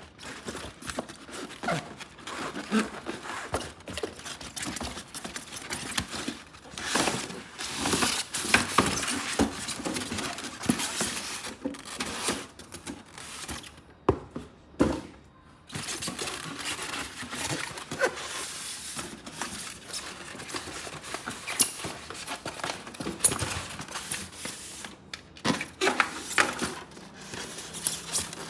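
Toy packaging being handled and opened: irregular rustling and crinkling of plastic and cardboard, with scrapes and light knocks.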